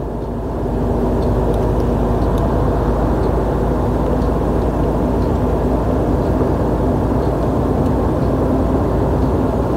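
Steady engine and road noise heard from inside a truck cab while driving on the highway, with a constant low engine hum; it grows a little louder about a second in and then holds steady.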